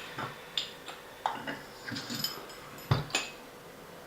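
Small metal turbocharger parts being handled and set down on a work surface: a scattered series of clinks and knocks, the loudest about three seconds in.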